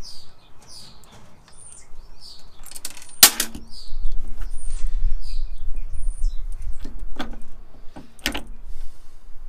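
Metal toolpost parts being handled and set down on a lathe's cross-slide: a sharp metallic clank about three seconds in and two lighter knocks near the end, over a low rumble. Short bird chirps repeat in the background.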